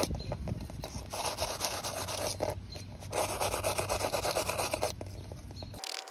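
Wire brush scrubbing rust and grime off a brake pad clip from a caliper bracket, in runs of quick scratching strokes broken by short pauses. It stops abruptly near the end.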